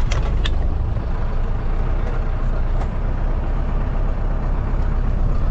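A motorhome under way: steady engine and road rumble.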